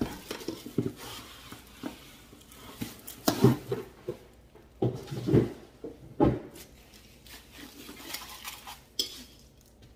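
Unboxing handling noise: a glass canister in foam packing lifted out of its cardboard box, with rustling and several irregular knocks and thumps of foam, cardboard and glass, the loudest in the middle.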